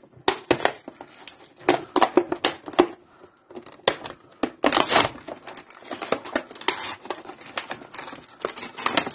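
Clear plastic blister packaging being pried and pulled off its cardboard backing card by hand: irregular crackling, crinkling and snapping of the plastic, thickest about halfway and in the last couple of seconds.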